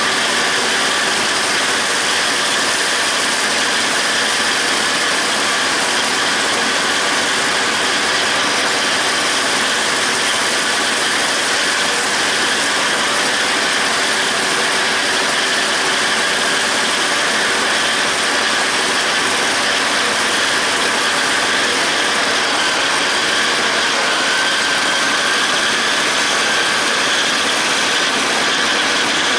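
John Deere 5320 tractor's diesel engine running steadily under load, driving a PTO-driven John Deere 270 disc mower whose spinning discs and cutterbar gears add a steady mechanical whir as it cuts grass hay.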